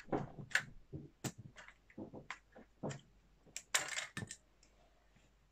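Plastic Lego pieces clicking and knocking as a built Lego model is handled, with a louder rattling clatter about four seconds in.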